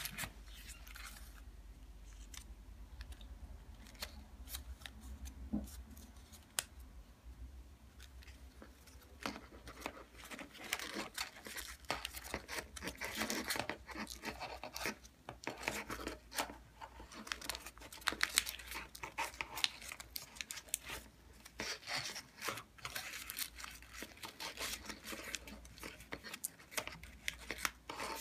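Origami paper rustling and crinkling as it is folded and tucked into place by hand. The handling is sparse at first and gets busier about nine seconds in.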